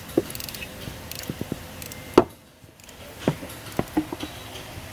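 Scattered sharp clicks and knocks of hand tools and metal parts being handled during engine work, about a dozen in all. The loudest knock comes a little over two seconds in.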